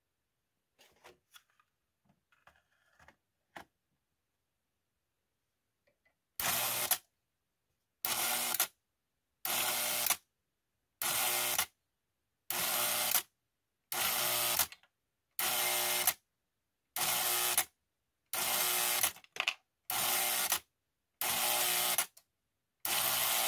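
Coil-operated unloading mechanism of a Lionel 3472 milk car buzzing on and off in short electric bursts, each under a second long, about one every one and a half seconds, a dozen times. It is being tested under power for smooth action. A few faint clicks come before the buzzing starts.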